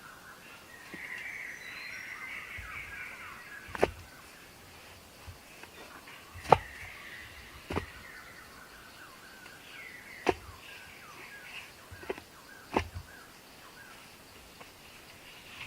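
Many small birds chirping together in the background, with about half a dozen sharp clicks or knocks scattered through; the loudest comes near the middle.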